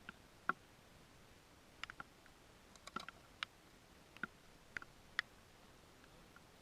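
About a dozen light, sharp clicks and ticks at irregular intervals over a faint hiss, the sharpest about half a second in.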